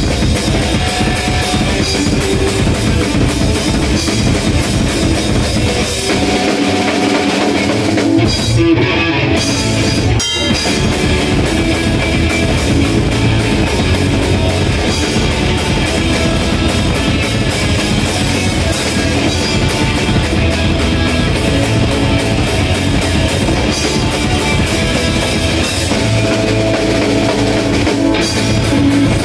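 Rock band playing live on stage: electric guitar over a full drum kit, loud and driving, the band having just kicked in.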